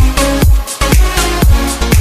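Electronic dance music with a steady beat of about two beats a second.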